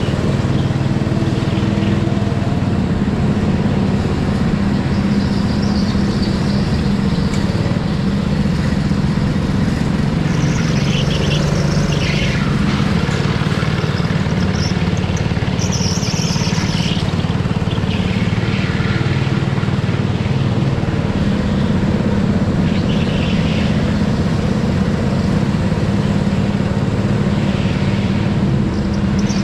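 Go-kart engine running under power, heard from the driver's seat, its note rising and falling a little through the corners.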